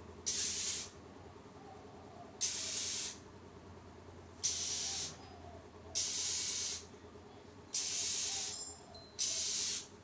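Oriental magpie-robin giving harsh, rasping calls: six noisy, unpitched rasps of about half a second each, spaced about a second and a half apart, over a low steady hum.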